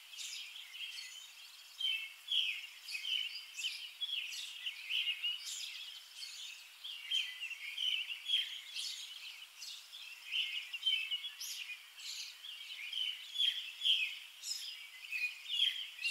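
Birds chirping and singing: a continuous run of short, high calls, many overlapping.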